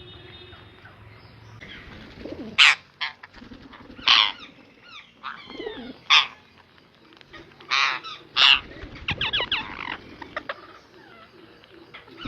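Ringneck parrot calling: about six short, loud, harsh screeches spread over several seconds, with a quick run of chattering calls near the end.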